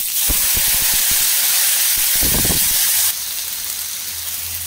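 Wet ground onion, garlic and chilli paste hitting hot oil in a kadai, with a loud sizzle that drops to a softer, steady sizzle about three seconds in.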